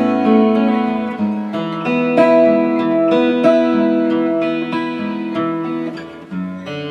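Martin GPC PA3 rosewood acoustic-electric guitar being played, picked notes and chords changing every second or so. It dips quieter shortly before the end.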